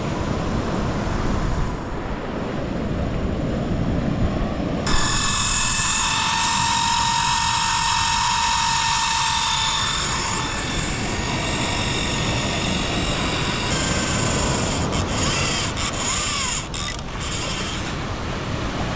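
Wind and surf, then from about five seconds in a steady high whirring whine as a big overhead fishing reel spins with its drag off, line being pulled off it by the drone flying the bait out to sea. The whine fades and stops about fourteen seconds in, followed by a few sharp clicks.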